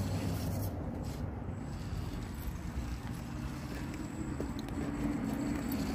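Axial SCX24 micro RC crawler's small electric motor and gears whirring as it crawls over rocks, under a low rumble of wind on the microphone. The whir grows stronger about five seconds in.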